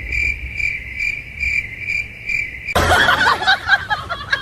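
High, insect-like chirping pulsing about three times a second, which cuts off sharply just under three seconds in and gives way to a busier jumble of quick squeaky calls.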